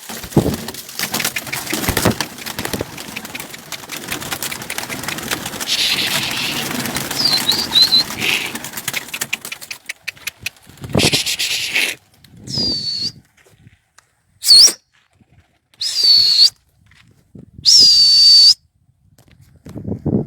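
Domestic pigeons flapping and shuffling their wings, with a few brief high chirps. In the second half come five short, loud whistle blasts on one steady high note.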